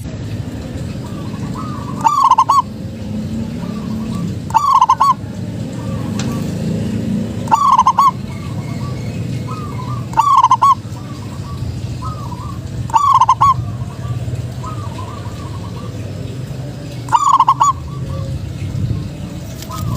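Zebra dove (perkutut) cooing: six loud, short bursts of rolling coos about every two to three seconds, with fainter coos in between, over a steady low background hum.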